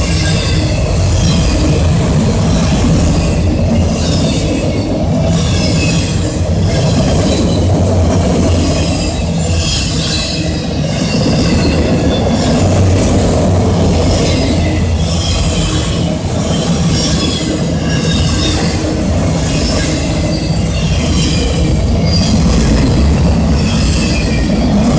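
Freight train of autorack cars rolling past close by: a steady loud rumble of steel wheels on rail, with high-pitched wheel squeal that swells and fades about once a second.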